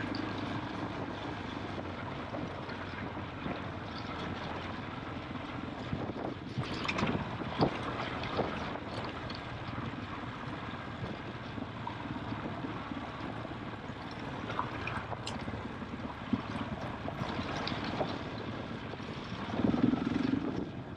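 KTM trail motorcycle engine running while riding, with wind on the microphone. A few sharp knocks come about six to eight seconds in, and the engine gets louder near the end.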